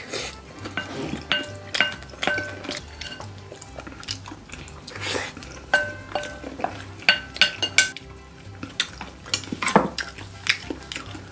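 A wooden spoon scraping and knocking against a glass bowl as mixed rice is scooped out, a scatter of sharp clicks with the glass ringing briefly after many of them.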